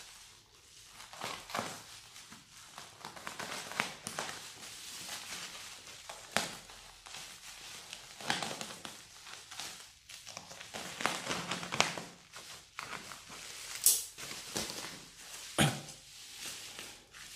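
Scissors snipping through bubble wrap and plastic packing wrap, with irregular crinkling and rustling as the plastic is pulled apart. Short sharp snaps stand out, the loudest two near the end.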